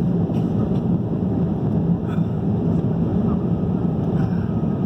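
Airliner cabin noise heard from a window seat: a steady low drone of the aircraft's engines.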